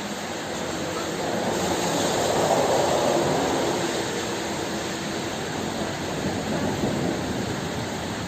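Steady heavy rain, with a rolling rumble of thunder that swells about a second and a half in and slowly fades.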